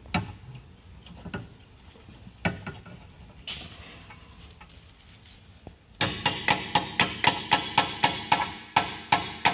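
Hammer blows on a steel M14 spline bit and bar, seating the bit fully in a brake carrier bolt head. A few faint knocks come first; about six seconds in, quick, even ringing metal strikes begin at about three a second.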